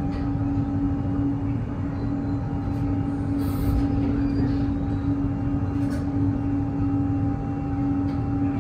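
Tram running along its track, heard from inside the cab: a steady low hum with a fainter higher tone over the rolling noise of wheels on rails.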